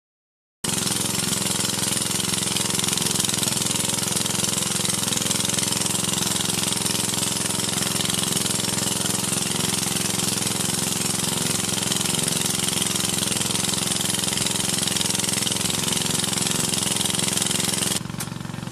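A small engine running steadily at a constant speed, with a loud hiss over it. The sound drops suddenly to a lower level near the end.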